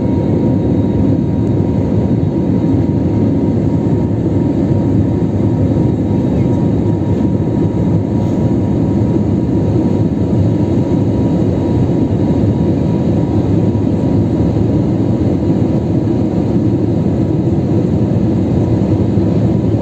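Airliner's jet engines and airflow heard inside the passenger cabin during the climb after takeoff: a steady, even rumble with a faint constant tone above it.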